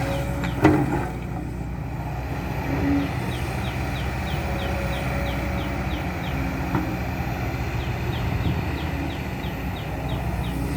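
Kobelco SK200-10 hydraulic excavator's diesel engine running steadily, with a short knock about a second in.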